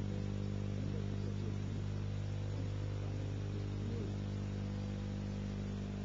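Steady electrical hum with a strong low buzz and its overtones, over a background hiss. Faint wavering tones come and go in the first few seconds.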